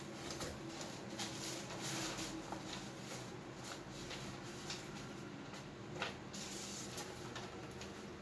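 Cardboard box being handled and opened: cardboard rustling and scraping with scattered light knocks as the packaging inside is pulled out and the box is tipped up.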